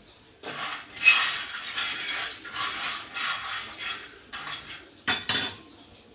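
Groundnuts being stirred in a pan over low heat: a run of dry rattling, scraping strokes, with a sharper clatter about five seconds in.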